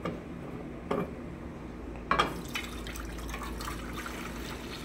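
A couple of light knocks as a plastic measuring cup is picked up, then, a little over two seconds in, about 500 ml of water pouring from it into an empty saucepan, splashing steadily.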